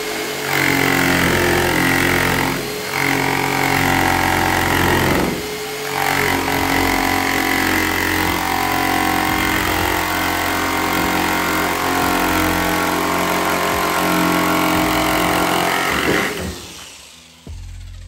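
Corded electric jigsaw cutting through a pickup truck's sheet-metal roof, running steadily with brief let-ups about three and five and a half seconds in, then stopping about sixteen seconds in.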